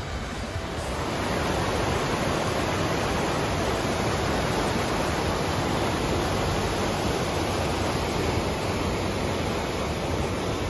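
Mountain creek water rushing steadily between snow-covered boulders, a constant hiss that gets louder about a second in.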